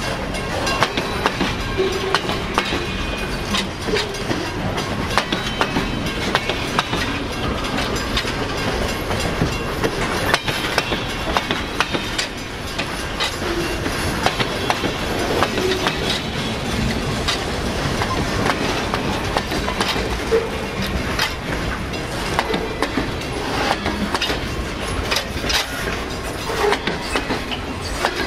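CSX freight train's cars rolling past at steady speed, wheels clacking and knocking irregularly on the rails over a continuous rumble.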